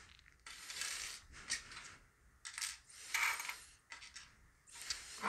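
Metal parts of a trailer coupler lock clinking and scraping as the lock is handled and worked with a bobby pin shim, in several short bouts.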